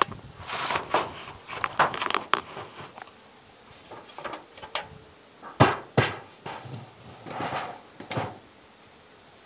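The tin-covered lid of a wooden beehive being lifted off and handled: scrapes and knocks of wood and sheet metal, the loudest two sharp knocks about halfway through.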